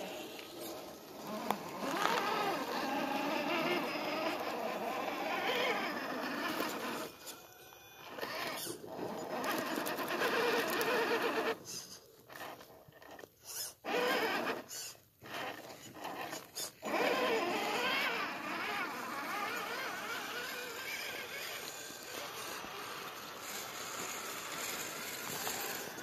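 Electric motors and geared drivetrains of 1/10 scale RC rock crawlers whining as they climb over rocks. The whine rises and falls in pitch with the throttle, and it cuts out and picks up again several times, with short gaps past the middle.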